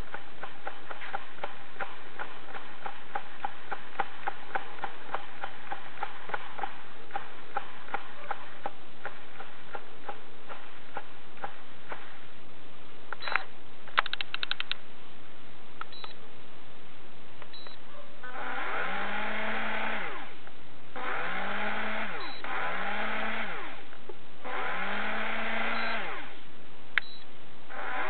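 Daiwa Super Tanacom EX 60 electric fishing reel: first a steady clicking from the spool turning, slowing down over about twelve seconds, then a few sharp clicks. After that its electric motor winds in four short runs, each whine rising in pitch as it spins up, and another run starts at the very end.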